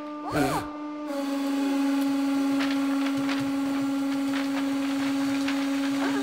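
Hydraulic press running with a steady hum while its ram crushes a black rubbery object under about 11 to 12 tonnes of load. A brief squeal sounds near the start, and faint cracks follow as the object gives way.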